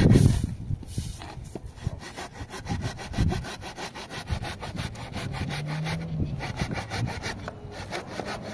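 Hand saw cutting through a wooden plank in quick, even back-and-forth strokes.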